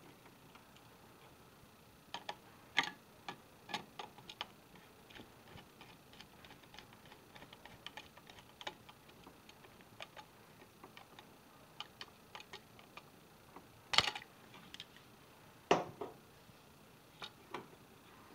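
Irregular small clicks and taps of wires and a new rocker light switch being pushed and handled in the wall's switch box, with a few sharper knocks about 3 seconds in and again around 14 and 16 seconds in.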